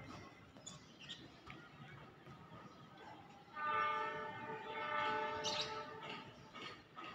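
Diesel-electric locomotive horn, the CC 206 of the Ranggajati train, sounded once as a chord of several notes starting suddenly about halfway through and held for roughly two and a half seconds.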